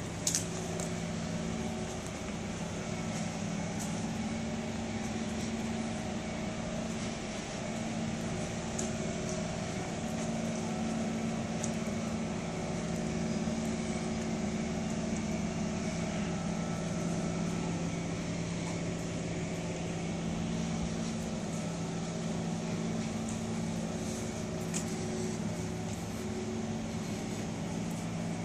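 A vehicle's engine running steadily at an even speed, a low continuous hum, with a few faint ticks above it.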